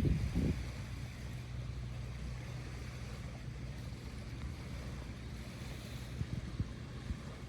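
Wind rumbling on the microphone with a faint wash of sea surf behind it.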